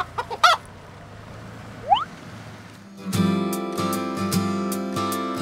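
A few short rising chirps over a quiet background, then acoustic guitar music starts about three seconds in, strummed with a steady beat.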